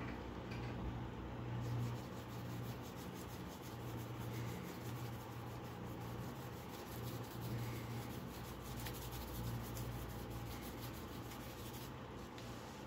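Gloved hands rubbing a wooden knife handle, a quick scratchy rubbing that starts about two seconds in and stops near the end, over a steady low hum.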